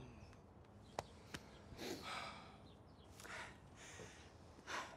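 Faint sighs and breaths from people standing close by, with two small clicks about a second in, over quiet background hiss.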